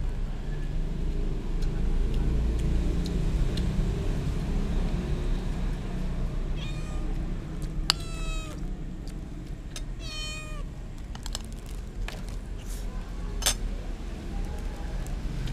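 A cat meowing three times, each call falling in pitch at its end, over a steady low background hum. A few sharp clicks follow near the end.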